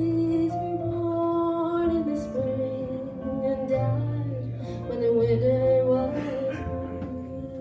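A woman singing a slow country ballad in long held notes, with keyboard accompaniment underneath.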